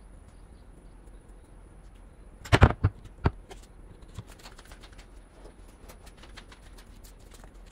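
Things being handled on a workbench: a quick cluster of sharp knocks about two and a half seconds in, one more knock just after, then a run of light clicks and taps.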